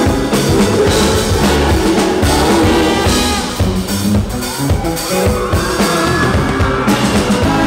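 A pop-jazz band playing live, with drum kit, bass and keyboards in an instrumental passage of a song.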